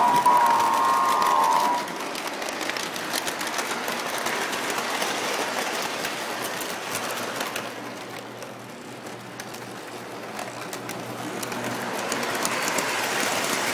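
Large-scale model train rolling along its track, a steady rattling rumble with quick clicks from the wheels and rail joints, picked up by a phone riding on one of the cars. A held whistle-like tone sounds at the start and stops about two seconds in.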